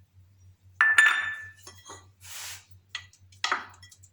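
A metal utensil clinking against a dish, a few sharp ringing clinks with the loudest about a second in, as boiled garlic cloves are put into the dish for mashing.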